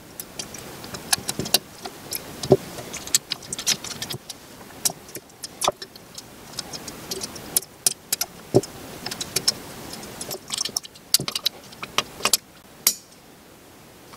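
Small metal parts of a VTG turbocharger's variable-vane mechanism clicking and clinking irregularly as the rollers and ring are fitted into the turbine housing by hand.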